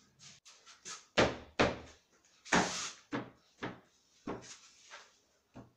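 A wooden door extension frame being knocked and pressed into place around a steel door frame: a string of about nine knocks and thuds. The loudest come in the first three seconds, with one longer clatter about two and a half seconds in.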